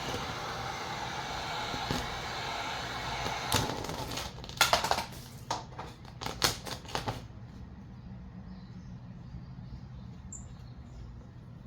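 Vinyl wrap film being worked onto a car panel: a steady hiss for about four seconds, then a quick run of sharp scraping or crackling strokes lasting a couple of seconds, then only a faint low hum.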